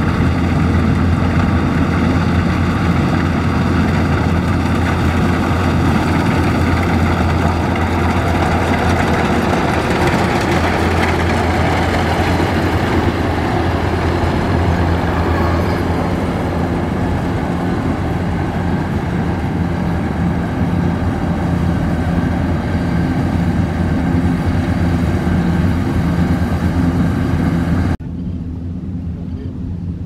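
Kubota rice combine harvester working through standing paddy: its diesel engine and cutting and threshing gear run steadily with a strong low hum. Near the end the sound drops suddenly and turns quieter and duller, the machine now heard from farther off.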